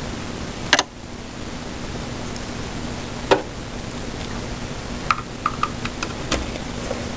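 Steady hiss with a faint hum, broken by a few light clicks and taps of computer parts being handled: one sharp click under a second in, another about three seconds in, and a run of small ticks near six seconds.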